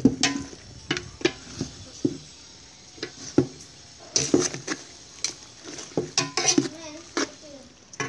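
Metal tongs clinking and scraping against a metal pot as they turn braised pork stomach and intestines, in irregular knocks over the steady sizzle of the hot braising sauce.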